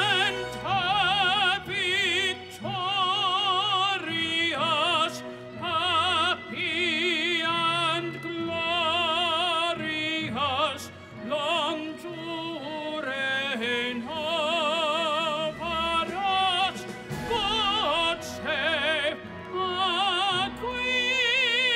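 Male operatic tenor singing live over a musical accompaniment, holding long notes with strong vibrato phrase after phrase, and a long held note near the end.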